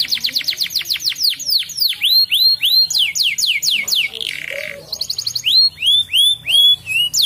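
Crested canary singing: a quick run of falling whistled notes, about eight a second, then slower upswept notes, a short rasping note about four seconds in, and more upswept notes.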